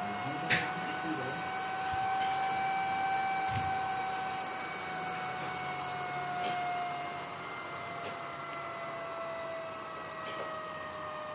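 Cooling fan on a PWM speed-control module running with a steady whining tone. Its pitch rises slightly, then slowly falls as the fan speed changes. A few sharp clicks are heard.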